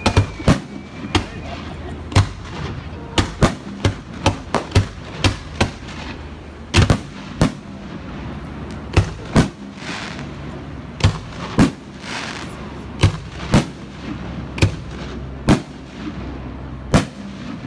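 Fireworks display: aerial shells bursting in a long, irregular run of sharp bangs, some coming two or three in quick succession.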